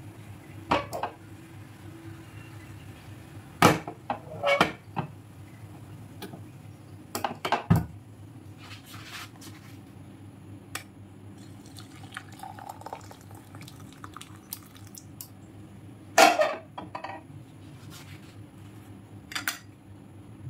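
Metal kitchenware clinking and knocking as an aluminium saucepan and a steel tea strainer are handled and milk tea is poured through the strainer into a cup. A dozen or so sharp clinks, the loudest about 4 and 16 seconds in, over a steady low hum.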